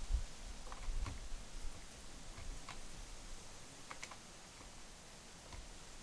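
Scattered light clicks of a wrench working a skateboard wheel's axle nut, with a few soft knocks in the first second or so.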